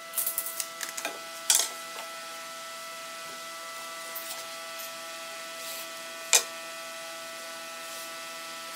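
Tape measure and metal straightedge handled on a hardwood slab during marking out: a run of light clicks and taps, with two sharp clicks, the first about a second and a half in and the second past the middle. A steady hum sits underneath throughout.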